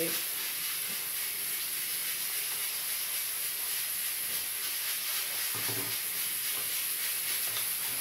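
Steady, high-pitched hiss of background noise; the blender's motor is not running, because it is not yet plugged in.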